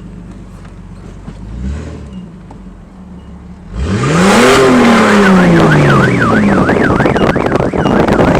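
Straight-piped Jeep exhaust idling, with a small blip about two seconds in. Near four seconds the engine is revved hard, rising then slowly falling. About a second later a parked car's alarm begins a fast warbling siren, set off by the loud exhaust.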